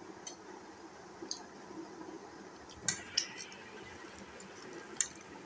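Light clinks of fingers against a china plate as rice is mixed and gathered by hand, a handful of short taps, the loudest about three seconds in and again near the end, over a faint steady hum.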